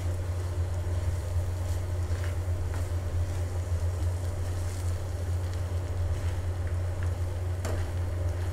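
A gas stove burner runs with a steady low roar, while a wooden spatula tosses cooked rice in a nonstick pan with a few soft scrapes and taps.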